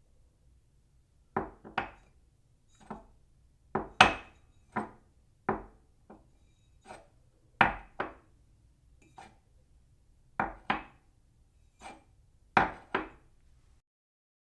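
A cup set down on its saucer again and again: a series of sharp, short clinks with a brief ring, about one a second, many coming as quick double clinks as the cup settles.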